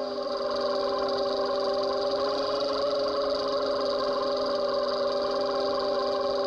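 Underwater drone of a trolling boat's engine and propeller carried through the water, a steady hum with several fixed tones over a noisy hiss.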